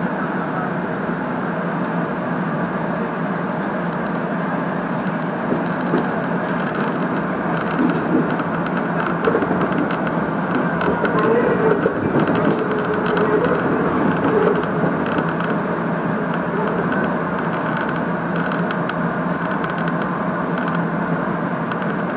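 Electric train running on the Hakone Tozan Railway line, heard from inside the car: a steady rumble of wheels on rail, with a run of clicks and rattles and a faint wavering tone through the middle.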